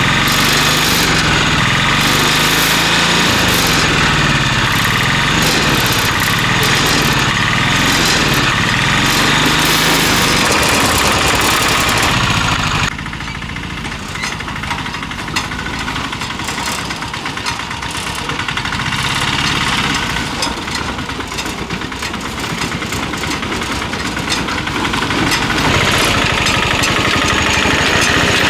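Mahindra Alfa Plus three-wheeler autorickshaw's engine running as it drives through ploughed mud, its pitch rising and falling with the throttle. About halfway it drops suddenly to a quieter engine note, which grows louder again over the last few seconds.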